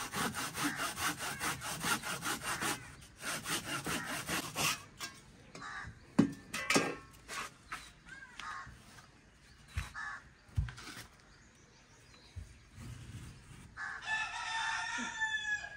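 A hand saw cutting a wooden piece in rapid back-and-forth strokes for about five seconds, then a few sharp knocks. A rooster crows near the end.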